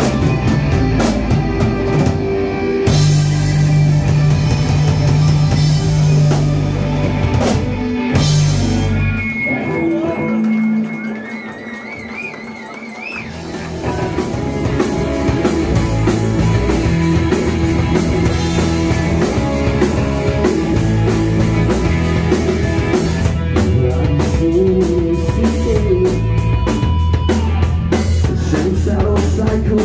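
Rock band playing live, with drum kit, guitar and bass. About ten seconds in, the drums and bass drop out, leaving a guitar with a rising, wavering bent note. The full band comes back in about four seconds later.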